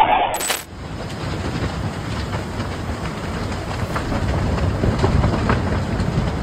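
Hurricane winds blowing hard: a loud burst of wind in the first half-second, then a steady low rush of wind.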